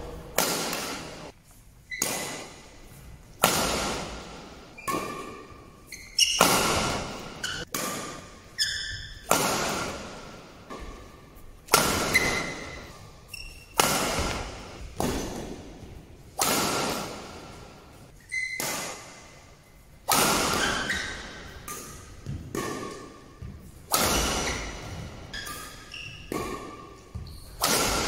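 Badminton rackets striking a shuttlecock in a fast rally, a sharp crack about once a second, each ringing on in the hall's echo. Between hits come short high squeaks of shoes on the court.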